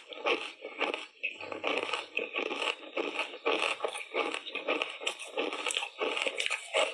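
Ice coated in matcha powder crunched between the teeth: a rapid, irregular run of sharp crunches, several a second.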